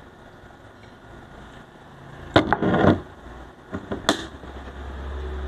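Tabletop handling: a sharp knock about two and a half seconds in with a short clatter after it, as the glass vinegar bottle is capped and set down, then a couple of light clicks. A low steady rumble sets in near the end.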